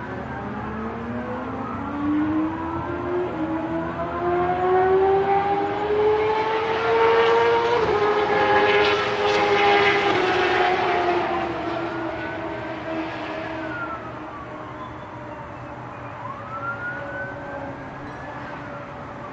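Police car passing with its siren wailing. The engine tone and the siren climb in pitch as it approaches and are loudest about eight to ten seconds in, with a rush of road noise; then the pitch drops as the car goes by, and the wail carries on fainter as it moves away.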